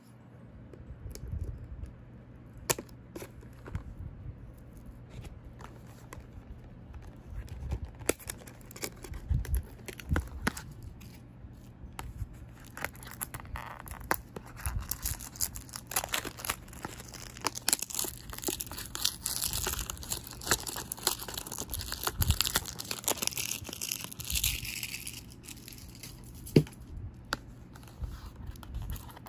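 Packaging of a small cardboard product box being handled and opened: tearing and crinkling, with scattered taps and knocks of the box against fingers and surface, the crinkling densest through the middle and later part.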